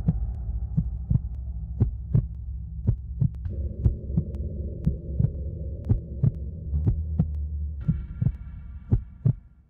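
Soundtrack heartbeat effect: a steady run of thumps over a low, sustained droning hum. Higher held tones join partway through and near the end, and the whole bed fades out at the close.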